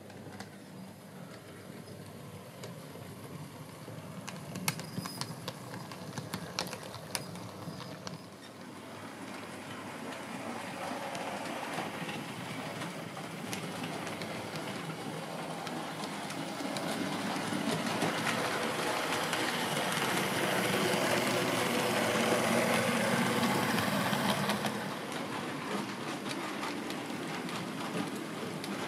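Model train running on the layout's track: the whirr of its motor and the rumble of its wheels on the rails grow louder, peak about twenty seconds in, then drop suddenly as it moves away. A few sharp clicks sound earlier on.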